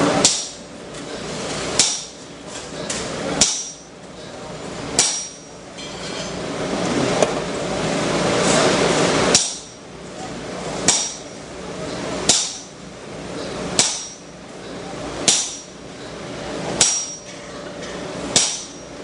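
Hammer blows on hot steel at the anvil, struck about every one and a half seconds with a short metallic ring, during a blacksmith's forging of a bending fork. There is a longer gap between blows near the middle.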